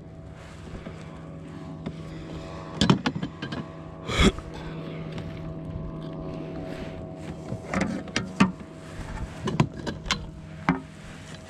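Scattered knocks and clatters of hands, fish and landing net against a plastic fishing kayak and its gear, over a steady low hum.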